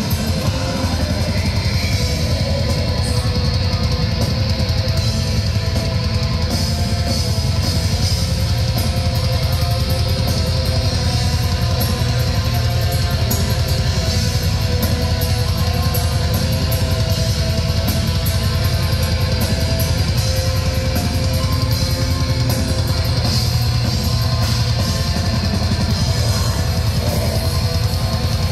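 Black metal band playing live at a steady loud level: fast drumming with cymbals under distorted electric guitars, heard from the audience.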